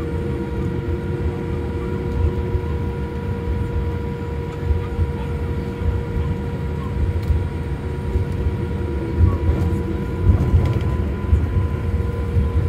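Boeing 787-8 Dreamliner's jet engines running: a steady low rumble with several steady whining tones above it.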